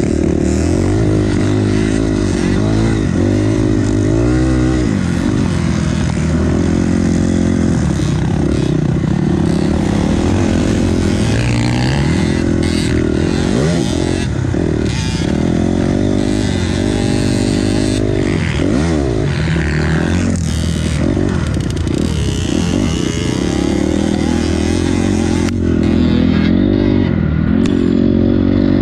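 Dirt bike engine heard from on board while riding a motocross track, the revs rising and falling over and over as the rider accelerates and backs off.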